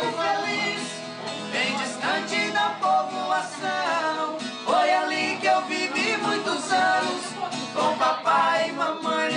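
Moda de viola, a Brazilian country song: men singing to strummed acoustic guitar.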